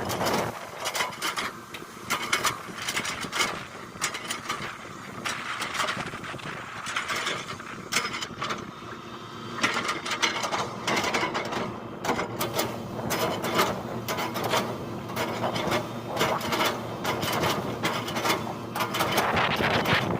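Hitachi excavator at work: the engine runs steadily under a long run of sharp, irregular clanks and cracks from the machine and the palms it is breaking.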